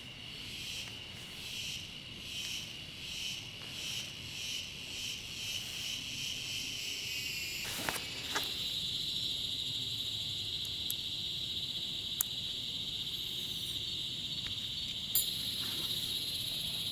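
Insects calling in the forest: a high chorus that pulses about once or twice a second, then changes to a steady unbroken high drone about halfway through. A few sharp clicks are heard, two of them at the change.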